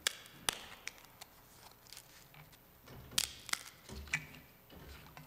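Scattered sharp clicks and light taps as the host and altar vessels are handled at the altar: about seven separate clicks, two close together a little past three seconds in, over quiet room tone.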